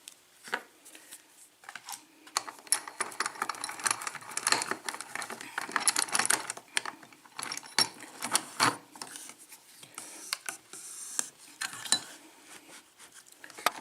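Small metal parts clicking and rattling in quick, irregular runs as a lock, its key and picking tools are handled.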